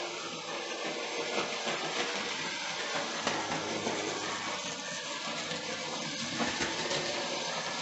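Hornby OO gauge model train running on its track: a steady electric-motor whirr with the wheels clicking over the rails.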